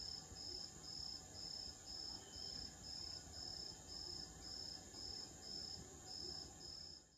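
Faint crickets chirping in an even rhythm of about two high chirps a second over a continuous high insect trill, fading out at the very end.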